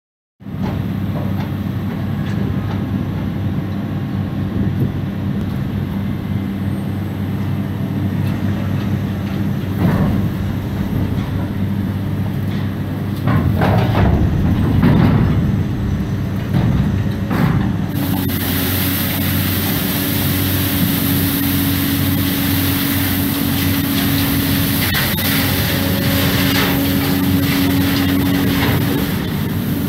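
Crane-mounted hydraulic brush cleaner working inside an open coal gondola wagon: a steady machine hum with scattered knocks between about ten and seventeen seconds in. About eighteen seconds in, a bright hiss and a higher steady hum join in.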